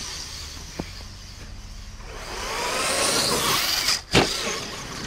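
Electric motor and drivetrain whine of a radio-controlled scale crawler truck driving through snow, swelling as it speeds up and nears, with a sharp knock about four seconds in.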